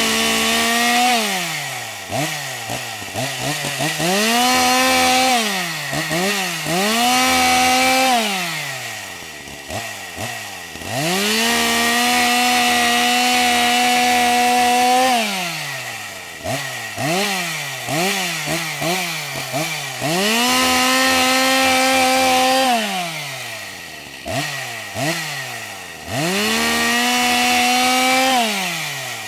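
Engine chainsaw being revved: the engine climbs quickly to high speed, holds there for a few seconds, then falls back, in between giving short quick throttle blips, over and over.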